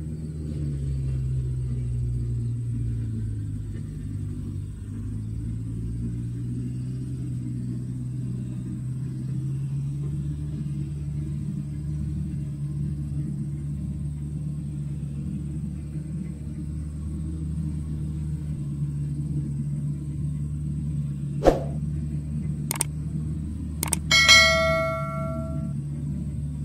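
Diesel engine of a John Deere tracked knuckleboom log loader running steadily, its pitch dipping and then rising and holding as the boom works. Near the end come a few sharp clicks and a short bell-like ding from a subscribe-button animation.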